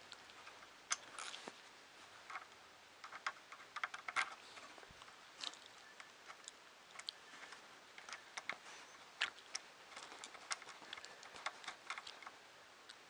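Irregular light clicks and taps of small 3D printer parts being handled and fitted together by hand.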